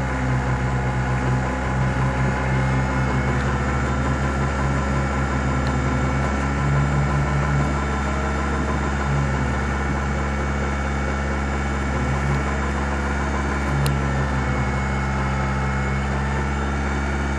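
Engine of a paragliding tow winch running steadily with a low hum during a tow.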